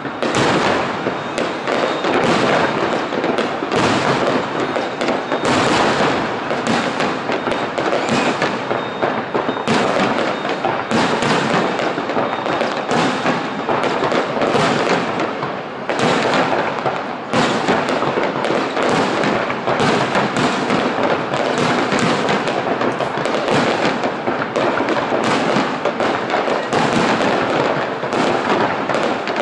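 Aerial firework shells bursting overhead in a near-continuous barrage of bangs, one after another, with no pauses.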